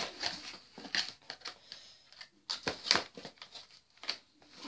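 A small knife cutting and scraping at the stiff plastic strips that hold a toy blaster in its box, making irregular clicks and scrapes.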